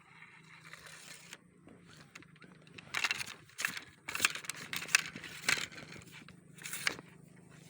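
Rustling, scraping and crackling handling noise close to the microphone, with a cluster of sharp crackles from about three to seven seconds in.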